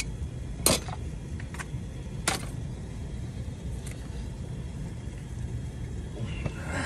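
A few sharp metallic clinks, such as tools or fittings being handled, over a steady low hum. The loudest clink comes about 0.7 s in and another about 2.3 s in.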